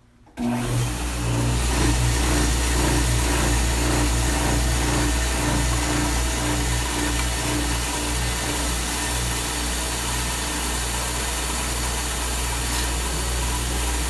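Electric power sander switched on about half a second in and running steadily, a motor hum under a broad sanding hiss, as the drawer's tapered edges are sanded down to fit.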